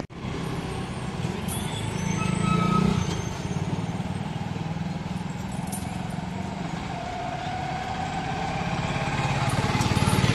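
Truck engine running steadily with road traffic passing, the engine noise growing louder near the end.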